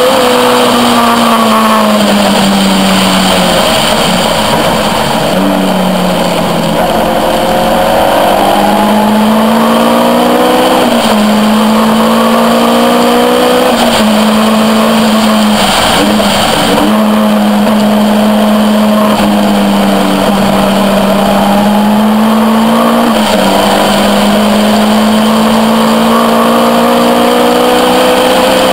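Caterham R400's engine at speed on track, heard from the open cockpit. Its note rises under acceleration and drops and steps as the car shifts gear and slows for corners, over steady wind rush.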